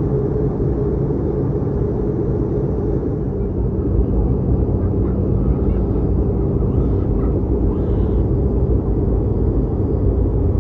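Steady rumble and low hum of a Boeing 717's rear-mounted Rolls-Royce BR715 turbofan engines, heard inside the cabin close to the engines.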